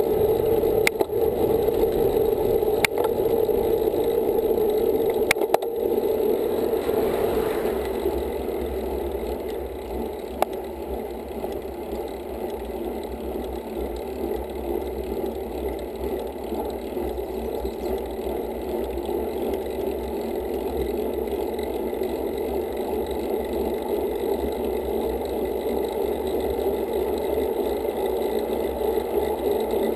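Steady wind and road noise from a bicycle-mounted camera on a moving road bike, with a few sharp rattling clicks in the first six seconds. The noise drops about eight seconds in, then slowly builds again.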